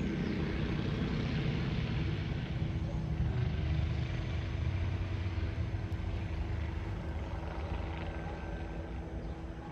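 A vehicle engine running with a steady low rumble, easing off slightly near the end.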